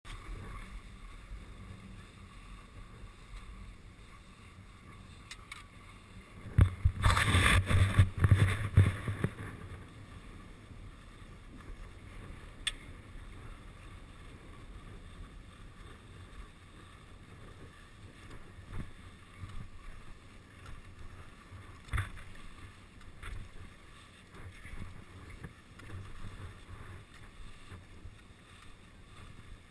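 Skis sliding over packed snow on a downhill run, with wind on the microphone. A louder rushing stretch lasts about three seconds, beginning some seven seconds in, and two sharp clicks come later.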